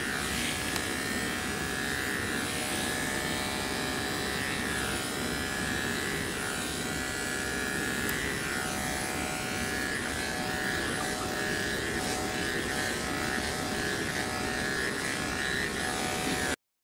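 Electric dog clippers running steadily while trimming a puppy's belly coat, a constant motor buzz that stops abruptly near the end.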